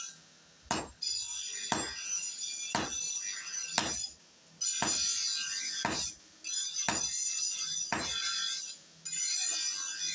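Hammer blows on red-hot steel on an anvil, about one a second, each with a short metallic clink and ringing: hand-forging a chisel from a truck shaft.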